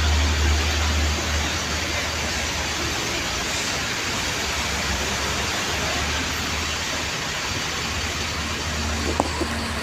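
Diesel bus engine running close by: a low rumble under a broad, steady noise. The rumble is strongest in the first second or so, eases, and swells again about six seconds in.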